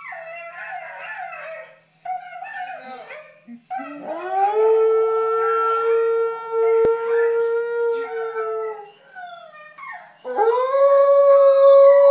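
A dog howling. Short, wavering cries in the first few seconds lead into a long howl about four seconds in: it rises into a held note and lasts about five seconds. A second long howl starts near the end.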